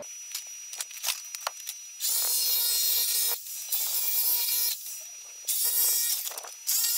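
Jigsaw cutting a patch piece out of thin sheet steel in short runs: a few clicks and knocks as the work is set up, then about a second of cutting at a time from two seconds in, stopping and restarting three times.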